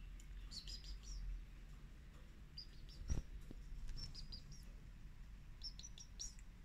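Small birds chirping in short, high twittering bursts, four times, with one sharp knock about three seconds in.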